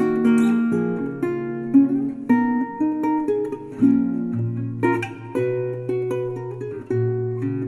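Background instrumental music played on plucked strings, guitar-like, with a new note or chord every half second to a second.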